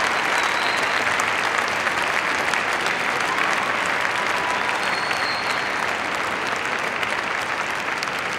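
Large arena audience applauding steadily, easing off a little toward the end.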